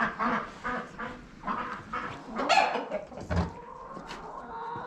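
Domestic fowl calling: a series of short, irregular calls, one louder call about two and a half seconds in, and a dull thump a second later.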